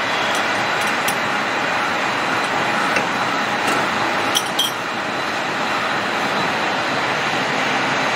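Metal lathe running, a steady machine-shop din, with a few short, sharp metallic clicks, two close together about four and a half seconds in.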